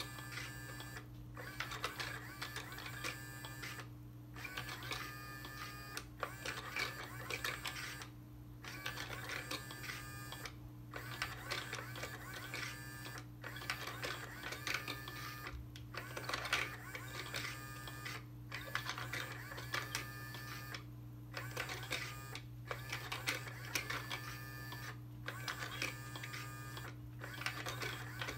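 Nekojara Sitter (猫じゃらシッター) battery-powered automatic cat teaser toy running: its motor and gears whir and click in spurts of one to a few seconds, broken by short pauses, as the teaser moves around inside and pokes out of the side holes.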